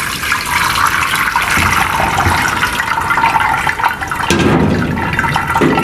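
Split milk, curds and whey, poured from a pot onto a muslin cloth in a strainer, the whey splashing steadily through into a deep vessel below.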